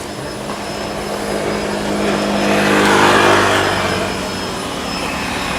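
Jet airliner's engines passing close by, the roar swelling to a peak about three seconds in and then fading.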